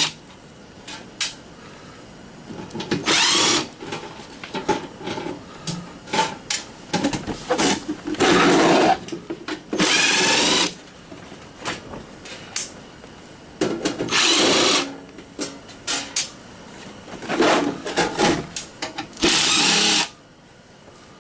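Power drill/driver running in about six short bursts of roughly a second each, its pitch rising and falling, as screws are backed out of a garage door opener's casing; light clicks and clatter of parts between the bursts.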